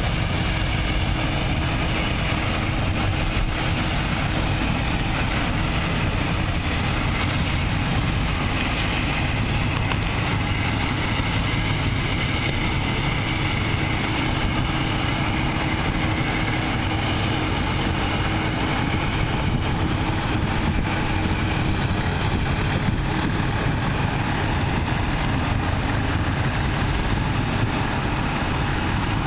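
Engine of the historic harbor tug Vermont running steadily as it passes, a continuous low drone with a steady hum, mixed with wind and water noise.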